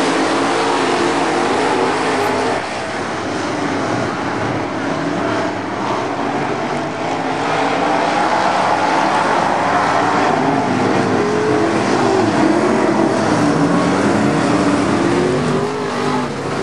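A pack of USRA Modified dirt-track race cars running laps at speed, their V8 engines blending, each engine note rising and falling as the cars go around the track.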